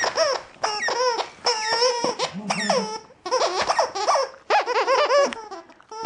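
Squeakers in a plush dog toy squeaking in quick runs of short, high, wavering squeaks as a Siberian husky bites and chews it. There is a short break a little after the middle.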